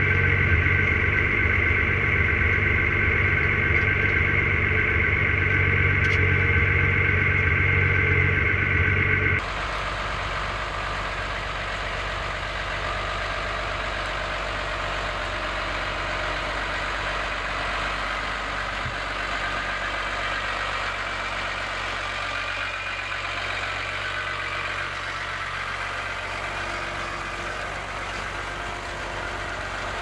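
New Holland T6050 tractor engine running steadily as it pulls a plough. For the first third it is heard from inside the cab with a steady high whine over the engine, then it cuts abruptly to a quieter engine sound from outside.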